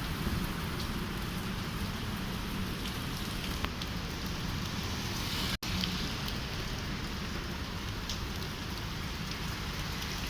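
Heavy rain falling steadily: a constant hiss with scattered patter of drops. The sound cuts out for an instant about halfway through.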